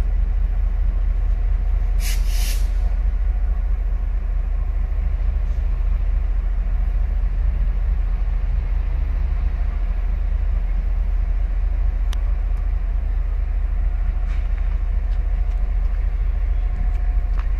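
Diesel-electric freight locomotive R22 rumbling steadily at idle. A short, sharp hiss of air released from the train's air brakes comes about two seconds in.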